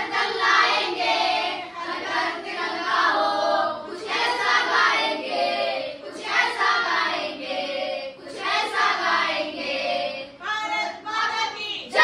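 A group of children singing together in unison, in phrases of about two seconds with short breaks between them. Near the end the phrases become shorter and more clipped.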